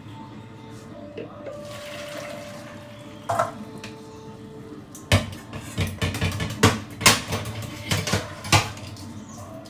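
Boiled eggs being knocked against a stainless steel colander to crack their shells, with a clatter a little after three seconds and then a quick run of about ten sharp metallic knocks and clinks in the second half.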